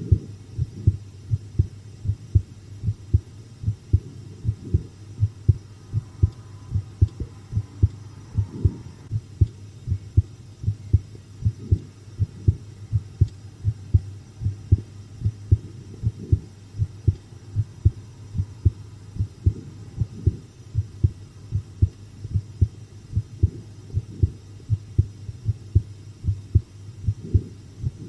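A human heartbeat recorded close against the chest: a steady, regular run of soft low thumps over a constant low hum.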